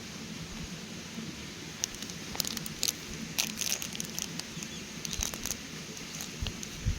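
Small wood campfire crackling, with irregular sharp pops that come thickest in the middle.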